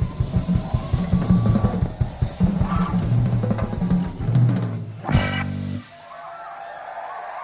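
Live rock band playing a driving drum-kit groove with bass and organ, ending on a final crash and held chord about five seconds in that cuts off suddenly, leaving quieter crowd noise.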